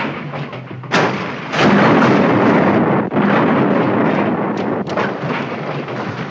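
A crashed car exploding into flames: a sharp bang about a second in, then a bigger blast and the rush of burning fire, with scattered crackles and pops as it slowly dies down.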